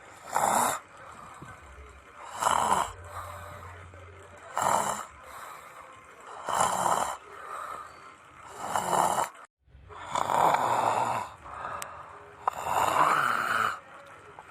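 A person snoring in a steady rhythm of about one snore every two seconds, the last two snores longer.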